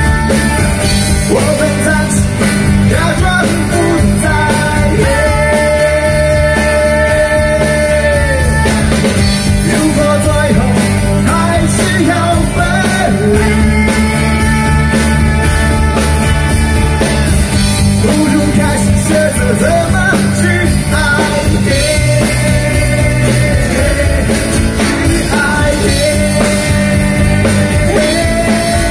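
A rock band playing live, with electric and acoustic guitars over drums and bass and a singer, loud and steady, with long held notes in repeating phrases.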